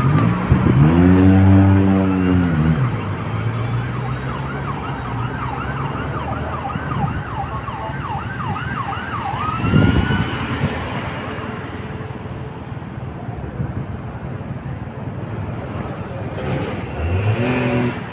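Street traffic with an emergency-vehicle siren wailing in quick up-and-down sweeps for several seconds in the middle. Near the start a loud pitched drone rises and falls, and a short loud burst comes about ten seconds in.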